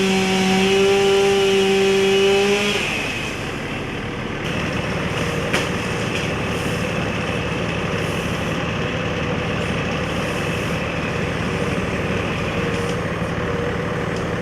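Two-stroke chainsaw running steadily at full throttle, then easing off about three seconds in. A steady engine drone carries on after it.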